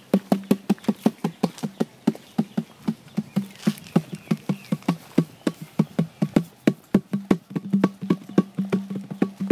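A small handheld drum beaten by hand in a fast, steady rhythm of several strokes a second, each stroke with a short low ring.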